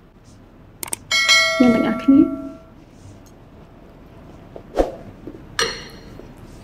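Subscribe-button animation sound effects: a click, then a bright bell chime ringing out about a second in, with a second, shorter chime near the end.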